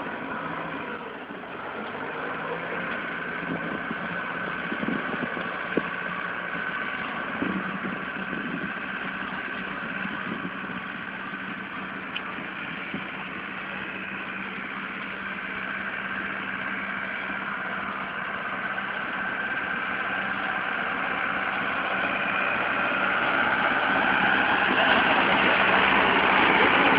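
Force Motors Balwan 500 tractor engine running steadily under load while driving a 2 m rotavator through the soil; the drone grows louder near the end.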